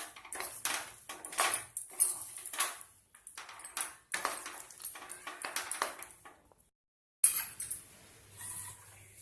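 A spoon scrapes and clinks against a kadhai as thick jaggery-coated peanuts are stirred, with several short strokes a second. The sound drops out for a moment about seven seconds in, then comes back fainter.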